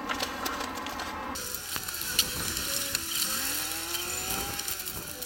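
Crinkling and rustling of foil emergency-food pouches being handled and slid into a wooden shelf, with scattered light clicks.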